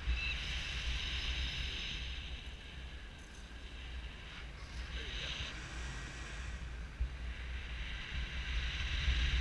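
Airflow rushing over an action camera's microphone in paraglider flight: a steady low rumble with a hiss on top that swells and eases, louder near the end.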